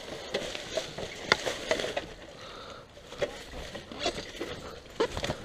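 Irregular crackles and snaps of dry leaves and sticks being crushed, with a few sharper clicks.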